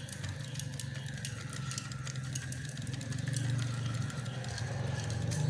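Spinning reel being cranked to wind braided PE line onto its spool: a steady mechanical whir with fine, rapid ticking.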